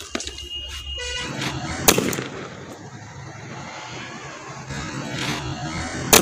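Two sharp bangs, one about two seconds in and a louder one near the end, over a steady outdoor background hiss.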